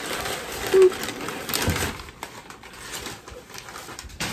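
Packing material rustling and crinkling as a shipping box is unpacked by hand, with scattered light knocks and a brief short low tone about a second in.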